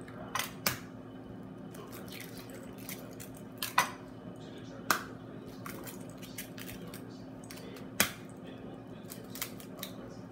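Eggs tapped and cracked against the rims of ceramic ramekins: a handful of sharp clicks and taps, the loudest about four and eight seconds in, over a steady low hum.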